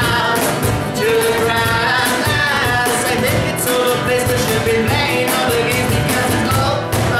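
Acoustic band playing alternative rock: strummed acoustic guitar and a cajón keeping a steady beat, with a man singing over them.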